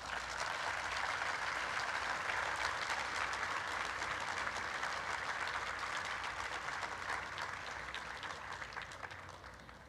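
Audience applauding at the end of a talk: many hands clapping steadily, then dying away near the end.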